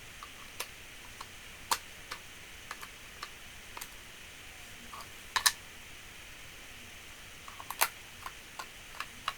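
Irregular sharp clicks and taps of small screws and the plastic casing of a DeWalt battery work light being handled during reassembly, a dozen or so spread out, a few louder than the rest, over a faint hiss.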